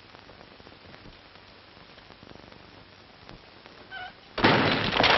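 A quiet pause, then near the end a loud smash of something breakable shattering, lasting over a second.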